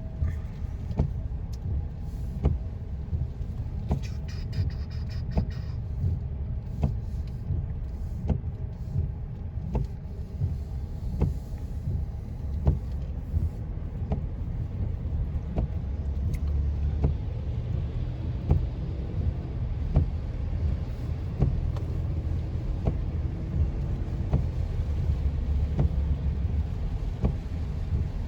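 Car cabin noise while driving in the rain: a steady low road rumble, with a short sharp tick about once a second.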